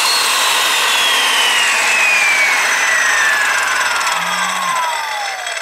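Skilsaw corded circular saw running with no load, powered from a power inverter wired to the tractor's batteries. Its whine falls steadily in pitch throughout, from high to low.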